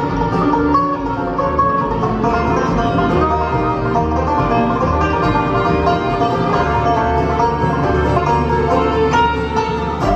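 Bluegrass band playing live: banjo, fiddle, mandolin, acoustic guitar and upright bass together.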